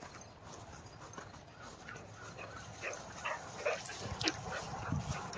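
Greyhound giving a few short yips as it runs up close, clustered in the second half, with a sharp click just after four seconds.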